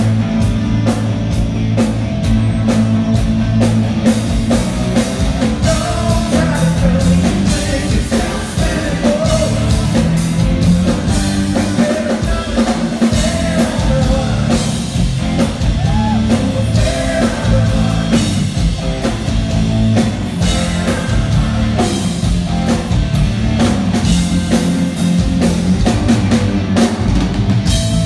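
Live rock band playing at full volume: a drum kit keeping a steady beat, electric guitars, and a singing voice.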